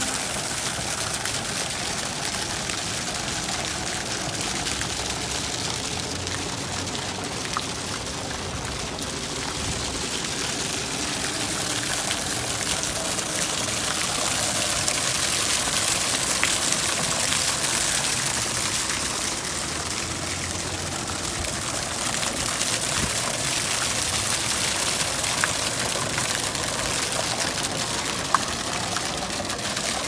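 Fountain jets splashing steadily into a shallow tiled pool, an even rush of falling water that swells a little midway.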